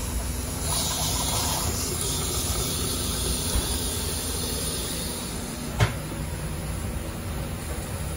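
Water running from a commercial sink faucet into a stainless steel basin and down the drain: a steady splashing hiss, flushing through a newly installed grease interceptor to test it. A single sharp knock sounds about two-thirds of the way through.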